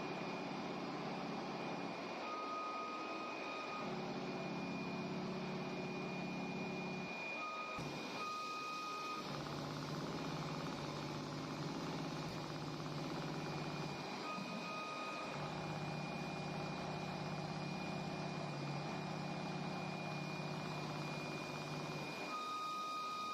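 Automatic CNC sewing machine running. Its drive motors hum in stretches of several seconds, with short pauses between them, under a steady high electronic whine. A second, lower whine comes in during some of the pauses.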